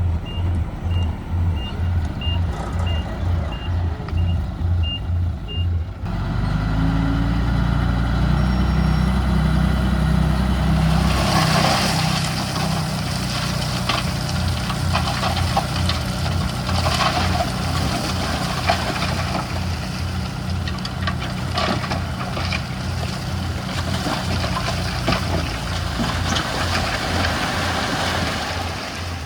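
Heavy diesel machinery at a stone fill site: a reversing alarm beeps steadily over the engine for about six seconds, then the engine revs up hard. From about twelve seconds in, a long rattling clatter of stone runs over the engine, typical of a load of stone being tipped or pushed.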